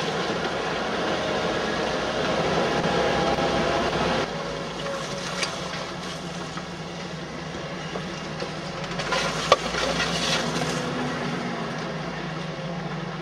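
Jeep engine running steadily at slow trail speed, heard from inside the vehicle, with small knocks and a sharp knock about nine and a half seconds in as it works over rough ground.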